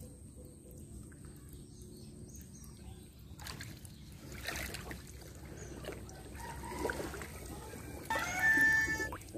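Pond water splashing and trickling at the surface, the splashes starting about a third of the way in over a low steady background. A short pitched call, the loudest sound, comes near the end.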